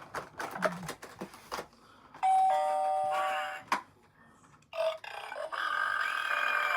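Two electronic chime-like tones, each held for a second or two before gliding down in pitch, with a sharp click between them.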